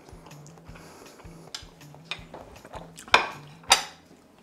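A fork and ceramic plate clinking twice, sharply, as the plate is set down on a stone countertop, over faint background music with a stepping bass line.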